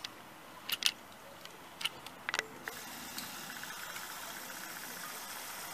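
A few sharp clicks, then from about halfway through the steady whirring of a camcorder's zoom motor with a fine fast rattle, as the lens zooms in.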